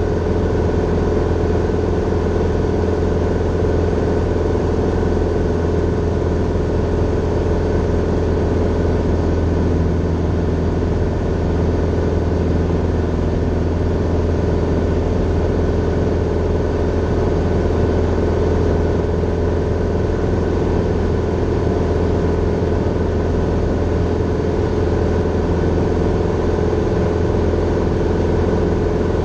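Grumman Tiger's four-cylinder Lycoming engine and propeller droning steadily in flight, heard from inside the cabin.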